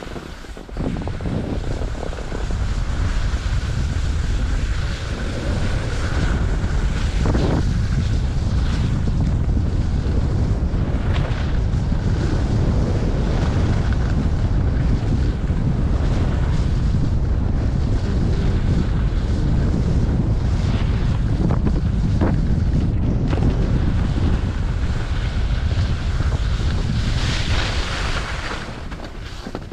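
Wind buffeting the microphone of a skier's point-of-view camera while skiing downhill at speed, a steady low rumble, with the hiss and scrape of the skis sliding over packed snow beneath it.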